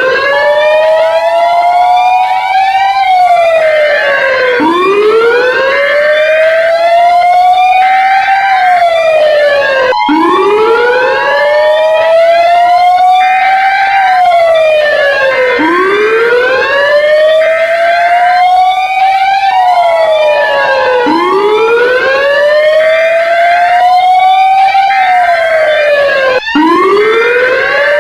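Emergency alert siren wailing: a tone rises slowly for about three seconds, then falls, repeating about every five and a half seconds, layered with many overlapping echoing glides and intermittent steady beep tones. It cuts out for an instant twice.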